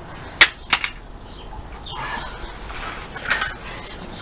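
Two sharp knocks in quick succession, then the scuffling and rustling of a staged struggle on paving stones, louder about three seconds in.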